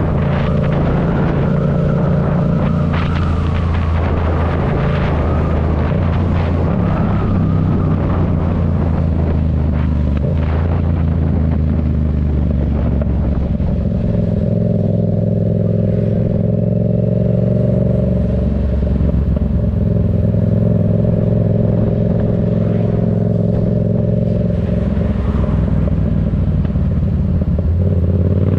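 Yamaha MT-07's 689 cc parallel-twin engine through a Black Widow aftermarket exhaust, running at low, fairly steady revs with its pitch shifting a few times, and beginning to rev up right at the end.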